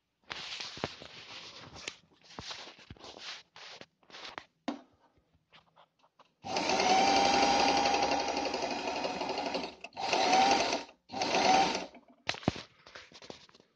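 Pfaff 294 electric sewing machine stitching through fabric in stop-and-start runs: short bursts at first, then one long steady run of about three seconds in the middle, the loudest part, followed by two shorter runs and a few quick bursts near the end.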